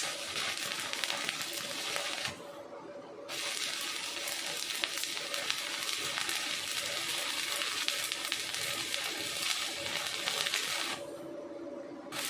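Welding arc from an EDON MIG 170S welder, crackling and sizzling. There is a short run of about two seconds, a pause of about a second, then a longer run of about seven and a half seconds that stops shortly before the end and starts again right at the end. A faint steady hum from the machine continues through the pauses.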